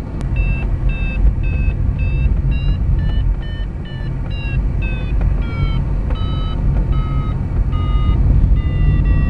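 A glider's electronic audio variometer beeping about two times a second. The pitch drifts down through the middle and rises again near the end, the beeps signalling that the glider is climbing in lift. Under it runs a steady rush of airflow around the PW-5 glider's cockpit.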